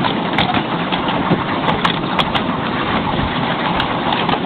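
Miniature railway train running, heard from aboard: a steady rumble with scattered sharp clicks and clatter from the wheels and carriages.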